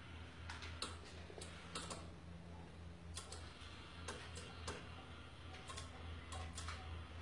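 Small motor of a homemade sun-tracking solar panel mount ticking and clicking irregularly as it turns the panel to follow a moving light, over a steady low hum.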